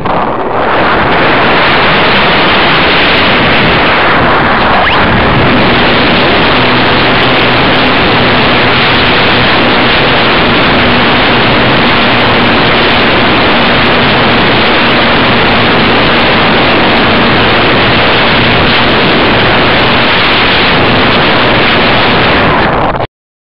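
Loud, steady rushing airflow on the microphone of a camera riding on a foam RC model plane in flight. The plane's motor hums faintly underneath from about five seconds in. The sound cuts out abruptly for a moment near the end.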